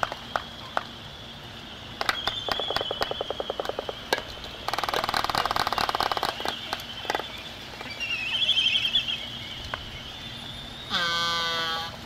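Waved albatross pair bill-fencing: their bills clack together in single knocks, then in quick rattling runs, the longest about two seconds. Near the end, one bird gives a short call.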